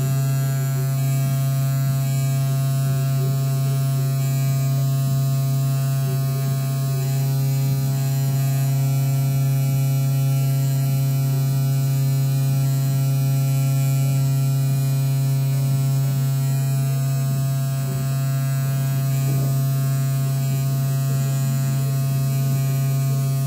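Spindle motor of a DIY Arduino-controlled, 3D-printed CNC engraver running steadily while its pointed engraving bit cuts into a plastic card: an even low hum with a long string of higher overtones and a hiss above.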